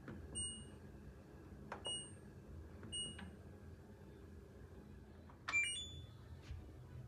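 LG front-loading washing machine control panel beeping as its buttons are pressed: three short identical beeps with soft button clicks, then, about five and a half seconds in, a louder click and a quick two-note beep stepping up in pitch as the start button is pressed.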